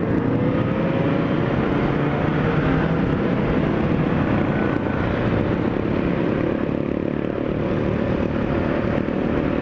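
Yamaha XJ6 inline-four motorcycle engine running at road speed, the revs climbing over the first second and then holding steady, with wind rush over it. Other motorcycles in the group ride close by.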